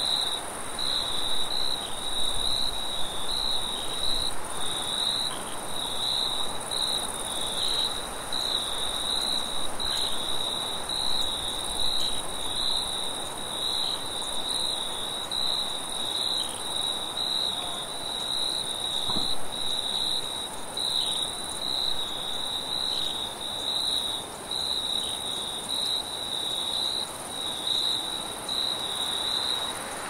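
Crickets chirping in a steady high trill that breaks briefly about once a second, over a steady rushing of wind.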